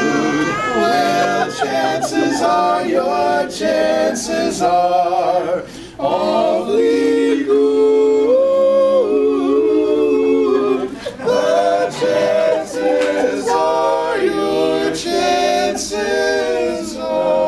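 Male vocal quartet singing a capella, several voices holding long notes together in close harmony, with a short break between phrases about six seconds in.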